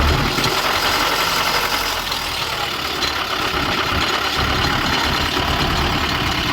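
Tata 407 Gold light truck's diesel engine running steadily, with an abnormal mechanical noise from the drivetrain that the uploader puts down to the propeller shaft or gearbox.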